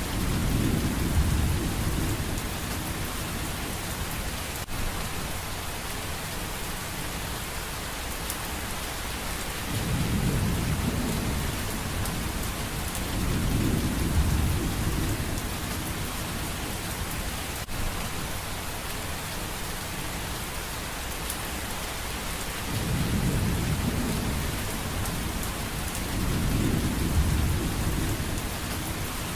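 Steady heavy rain hissing, with several low rolls of thunder rising and fading, each lasting two or three seconds, about five in all.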